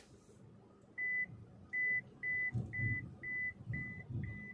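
MG Gloster's parking-assist beeps in the cabin: a steady run of short, high-pitched beeps about two a second, starting about a second in, the first one slightly longer.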